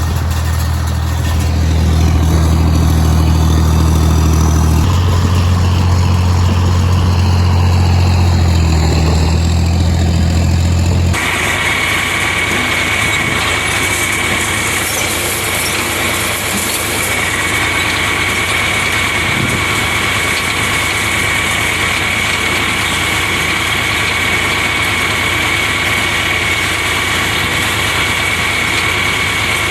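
Farm tractor engine running steadily, its speed shifting slightly about five seconds in. About eleven seconds in the sound cuts abruptly to a different steady machine noise with a thin, constant high-pitched whine.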